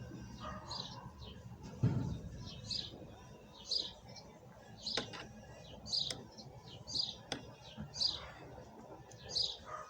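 A small bird chirping over and over, short high chirps about once a second, with a dull thump about two seconds in and a couple of sharp clicks later on.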